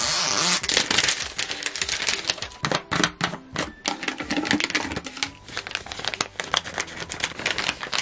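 Thin plastic packaging crinkling and crackling in quick, irregular clicks as a red plastic sleeve is slid off a clear plastic doll bottle and pulled away from the doll. It opens with a loud, even rustle that stops about half a second in.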